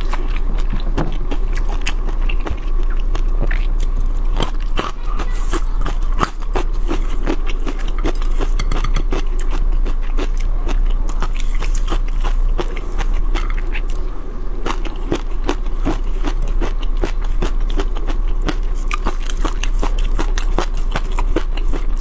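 Close-miked eating sounds: chewing shrimp in a chili sauce, and utensils scraping the sauce across a ceramic plate, with a dense run of small clicks and smacks over a steady low hum.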